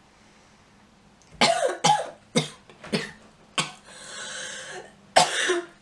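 A girl coughing in a fit: a quiet first second or so, then five short coughs about half a second apart, a long breathy intake of air, and another cough near the end.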